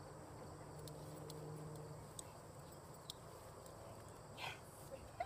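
Quiet outdoor background: a faint steady low hum with a few light clicks, and one short high-pitched call about four and a half seconds in.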